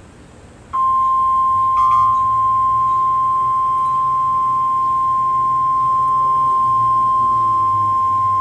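NOAA Weather Radio 1050 Hz warning alarm tone: one steady, loud, high-pitched tone that cuts in suddenly a little under a second in, over faint radio hiss. It signals an emergency alert, here a tornado watch, about to be read.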